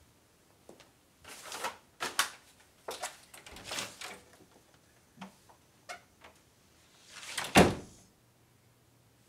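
Footsteps on a hard floor and a wooden front door being unlatched and opened, then the door shut with a loud, heavy thud near the end.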